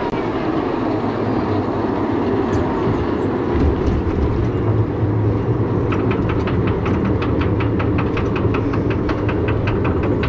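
Log flume ride running: a steady rush of water and a low machine hum. About six seconds in, a rapid, even clicking starts, about four clicks a second, the kind a flume boat's lift conveyor makes.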